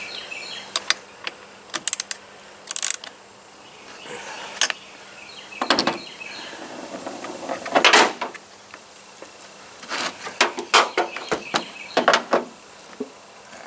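Socket ratchet clicking as a spark plug is screwed back into a Stihl 021 chainsaw's cylinder, followed by scattered knocks and clatter of the tool being set down and the saw being handled; the loudest clatter comes about eight seconds in.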